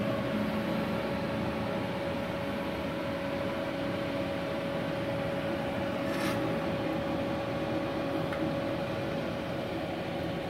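Switched-on Multipro MIG-MAG 250NF G-KR inverter welder idling, not welding: a steady cooling-fan hum with a constant whine, and a brief click about six seconds in.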